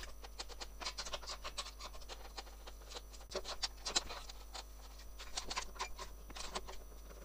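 Socket ratchet clicking in short quick runs as bolts are undone.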